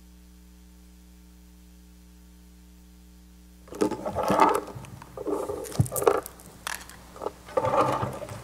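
Low steady electrical hum through the sound system. About four seconds in it gives way to rustling, scraping and knocks, which come as a book and papers are handled and set down on a wooden pulpit close to its microphone.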